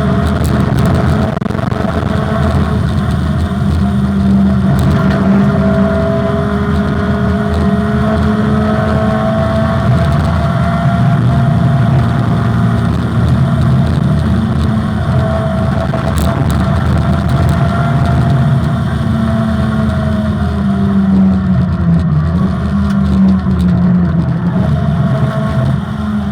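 Opel Manta rally car's engine running hard at speed on a rally stage, loud and steady, its revs climbing and dropping again and again, with a dip in revs about three-quarters of the way through.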